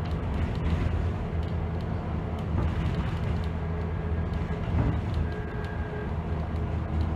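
Dennis Trident double-decker bus's diesel engine running steadily as the bus drives along, heard inside the upper deck, with light rattles from the bodywork.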